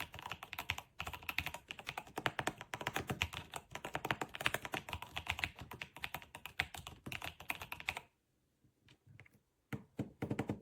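Fast typing on a Yunzii B75 Pro gasket-mounted mechanical keyboard: a dense run of keystrokes that stops about eight seconds in, then a few separate key presses near the end.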